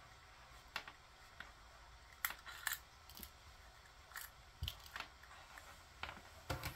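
Faint, scattered clicks and rustles of a coiled dash cam hardwire-kit cable being handled: its twist ties undone and the cable unwound.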